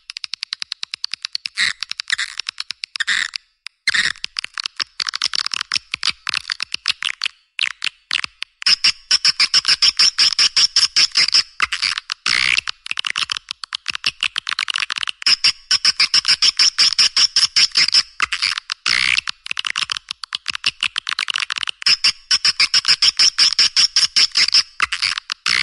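Swiftlet lure call recording playing: a fast, unbroken stream of high-pitched chirps and clicking twitters, with loud stretches of rapid trilling that come back three times. It is the kind of call track played to draw swiftlets into a nesting house.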